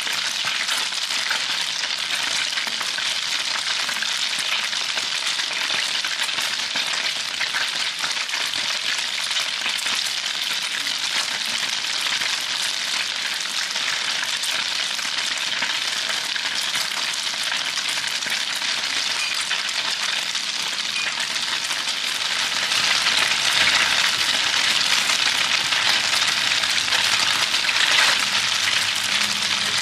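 Food frying in hot oil in a pan, a steady sizzle that gets louder about three quarters of the way in.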